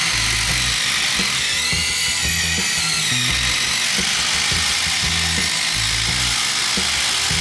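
Two cordless impact drivers, a Craftsman V20 and a RIDGID Octane, hammering fasteners in under load, their motor whine wavering in pitch. Music plays underneath.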